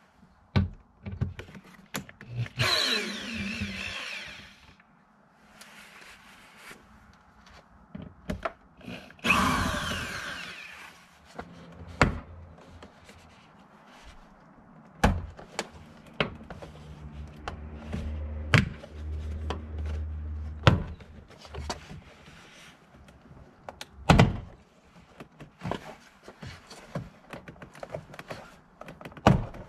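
A power drill driving out the door-panel screws of a Toyota 4Runner front door in two short runs, its motor pitch sliding up and down. After that come many sharp snaps and knocks as the plastic retaining clips around the panel's edge are pried out.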